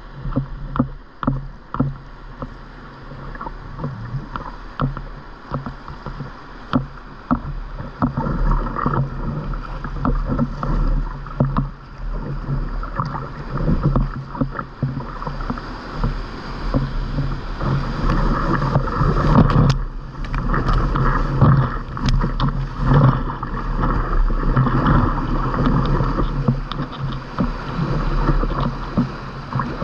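Kayak paddle blades splashing with each stroke and whitewater rushing around the boat as it runs a river rapid. The strokes stand out at first, then the churning water grows louder and rougher.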